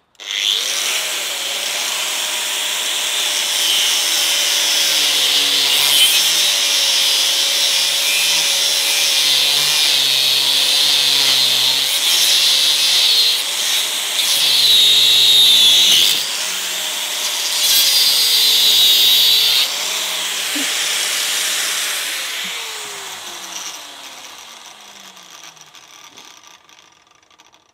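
Bosch angle grinder cutting into the Barronium-armoured shackle of a Litelok D-lock, its motor pitch wavering as the disc is pressed into the metal. About twenty seconds in it is switched off, and the disc winds down with a falling whine that fades out.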